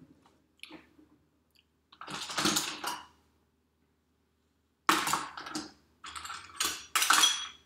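Clicks and clatter of kitchen utensils being moved about while a misplaced teaspoon is searched for, in a few short bursts with a quiet gap in the middle.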